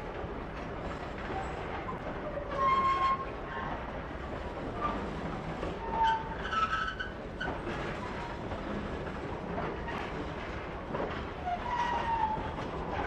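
Empty PCA bulk cement wagons rolling slowly past, their wheels clattering and clanking over the rails and pointwork with brief high squeals. The squeals and clanks are loudest about three seconds in and again around six and twelve seconds in.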